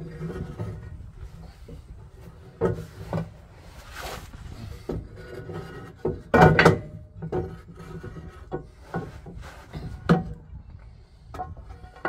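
A new heavy-duty front leaf spring is being manoeuvred up into place under a VW Crafter van, knocking, scraping and rubbing against the suspension and chassis metal in irregular clunks. The loudest clunk comes about six and a half seconds in.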